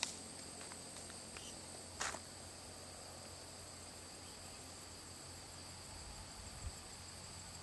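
Insects in dense vegetation singing steadily, a faint continuous high-pitched drone on two even tones; a single short click about two seconds in.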